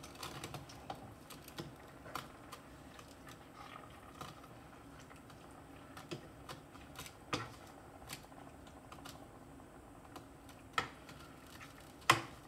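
Irregular light clicks and taps from a saucepan of food reheating on a stovetop, a few louder taps among them, over a faint steady background.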